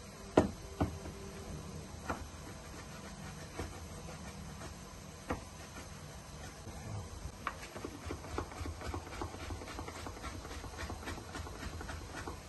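Chef's knife cutting carrots on a plastic chopping board: a few separate knocks of the blade in the first half, then quicker, steady chopping from about seven seconds in as the carrot is diced.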